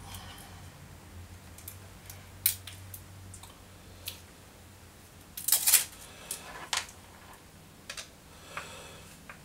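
Scattered small clicks and taps of plastic and metal parts handled by hand as a hard drive's circuit board and enclosure parts are worked on at a bench, with a louder short cluster of clatter about five and a half seconds in.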